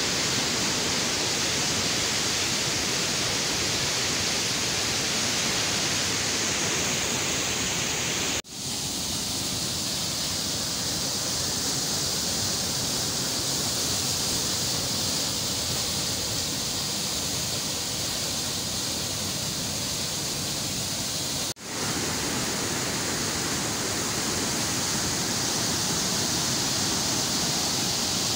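Water rushing and churning through the open gates of a canal head regulator: a loud, steady rush of white water. It breaks off for an instant twice, about a third of the way in and again about three-quarters of the way through.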